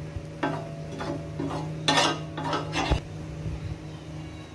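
A metal utensil scraping and clattering against a flat griddle (tawa), about six short strokes in quick succession, as ghee is spread on it. A low steady hum runs underneath.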